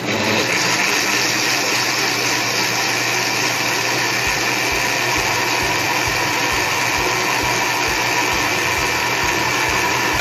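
Electric countertop blender switched on and running steadily at full speed, blending bananas and milk into a shake, then cut off right at the end.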